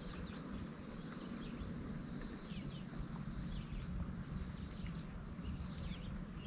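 Outdoor ambience of insects calling in a high buzz that swells and fades about once a second, over a steady low rumble.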